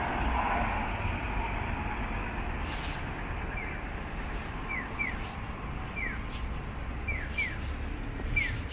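Japanese audible pedestrian crossing signal giving electronic 'piyo' bird-call chirps, short falling tones that alternate single and double about once a second, starting about three and a half seconds in: the sign that the walk light is green. Under it runs a steady low street rumble.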